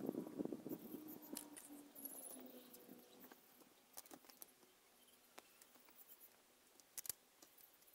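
Faint clicks and light scraping of small metal screw hooks being turned by hand into drilled holes in a plastic keyboard case, with a few scattered ticks later on.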